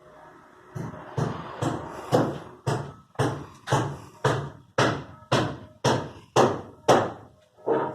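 Hammer blows on wood framing, a steady run of about fourteen strikes at roughly two a second, each with a short ring.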